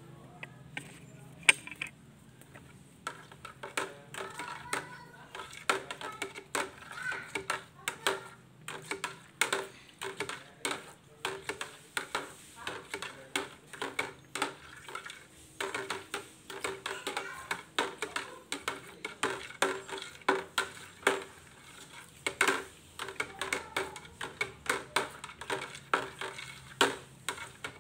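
Fabric-conditioner mixture being stirred by hand in a plastic bucket with a metal utensil: liquid swishing with frequent, irregular clicks and knocks of the utensil against the bucket.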